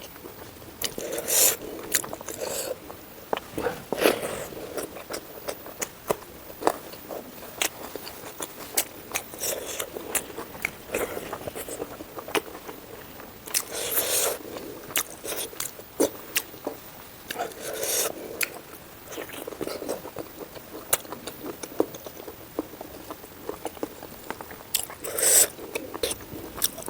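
Close-miked eating sounds: chewing and biting with many sharp clicks and crunches. Louder crunches come every few seconds, about five in all.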